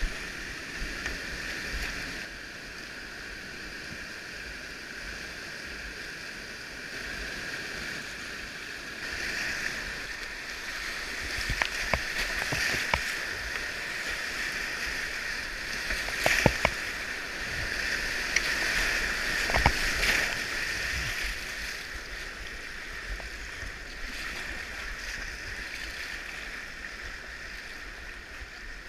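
Rushing whitewater around a kayak running a river rapid, louder through the middle, with paddle splashes and a few sharp knocks of water striking.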